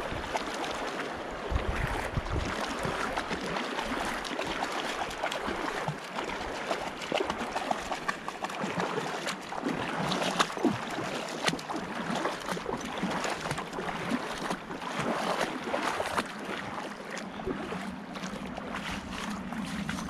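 A person and a Brittany dog wading through a shallow, pebbly stream, water splashing and sloshing with each step.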